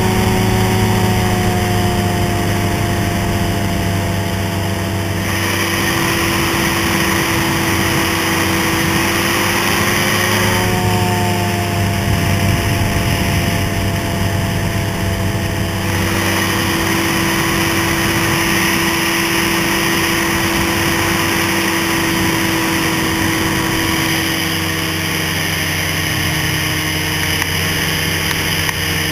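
Ultralight trike's engine running steadily in flight, with wind rushing over the microphone. The engine note sags slightly a few times and settles a little lower near the end.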